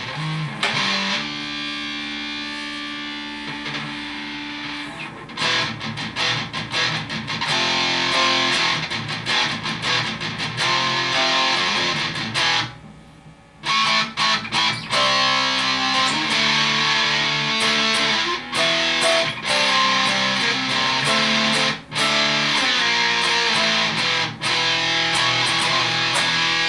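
Electric guitar played through an op-amp Big Muff Pi–style fuzz pedal, with strummed chords and riffs in a distorted fuzz tone. A chord rings for the first few seconds, and the playing breaks off briefly about halfway through. The pedal is working cleanly, free of the oscillation that a 47 nF capacitor fitted in place of 4.7 nF had caused.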